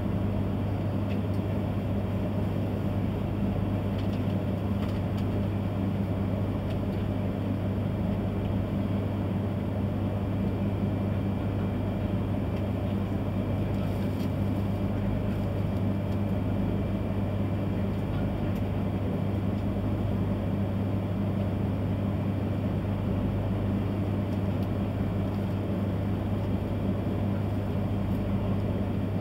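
Steady low hum inside a stationary E3-series Shinkansen car: its onboard equipment and air conditioning running while the train stands at the platform.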